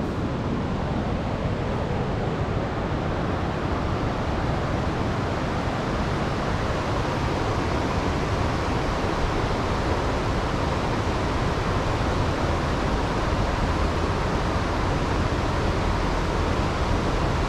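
Steady, even rushing noise with no change in level.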